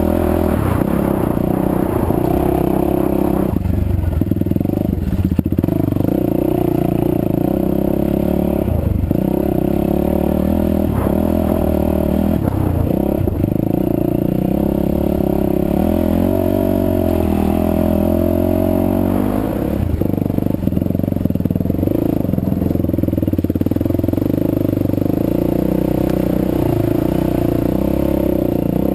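Yamaha WR450F four-stroke single-cylinder engine running, freshly rebuilt with a new piston and rings. It holds a mostly steady note, with the pitch wavering a few times around the middle.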